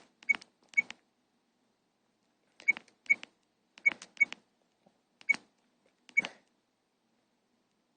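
Keypad buttons of a Motorola C168i mobile phone pressed eight times, mostly in loose pairs, each press a short click with a brief high key beep, as the phone's menu is stepped through.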